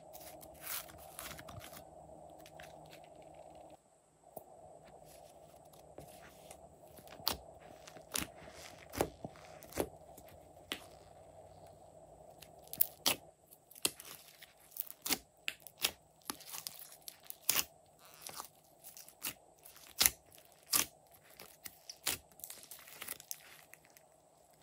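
Hands squishing and stretching foamy slime in a glass dish, giving irregular sharp crackles and pops. The pops are sparse at first and come thick and fast in the second half.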